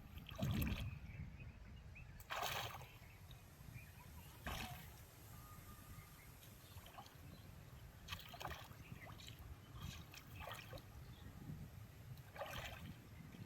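Water sloshing and splashing in short bursts every couple of seconds, over a low steady rumble.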